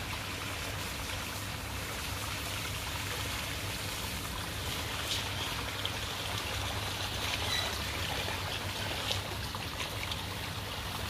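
Water running and trickling over rocks in a man-made garden stream, a steady, even rush of water.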